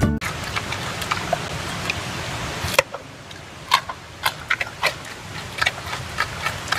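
Brown giant panda chewing raw carrot: sharp, irregular crunching crackles starting about three seconds in, after a few seconds of steady hiss.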